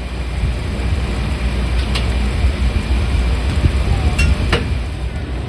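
Steady low rumble of a moving vehicle, with a few sharp clicks or knocks.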